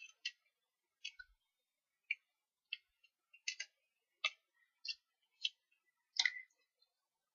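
Stampin' Up! Paper Snips cutting a narrow paper label strip: about a dozen quiet, short, crisp snips, roughly one every half second, as a flag-shaped notch is cut into the strip's end.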